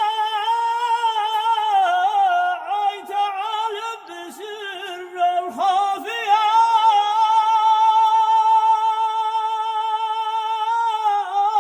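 A man's solo voice chanting a Yemeni tasbih unaccompanied, in a high, ornamented melismatic line that settles about halfway through into one long held note.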